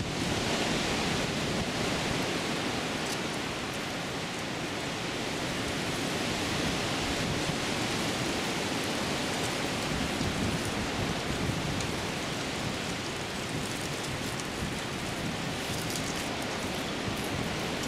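Steady wind: a constant rushing noise of wind through the bushes and across the microphone.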